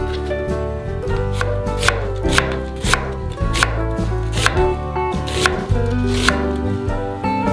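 A kitchen knife chopping on a wooden cutting board: about a dozen irregular strikes, first cutting blanched green beans in half, then slicing an onion. Light background music plays underneath.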